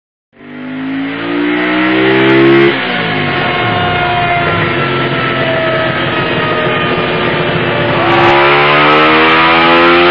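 Sport motorcycle engines at full throttle on a Dynojet chassis dynamometer, the rear wheel driving the roller. The engine note climbs in pitch for the first couple of seconds and drops suddenly, runs on steady and loud, then from about eight seconds a Ducati 1098's L-twin climbs in pitch again on a wide-open dyno pull.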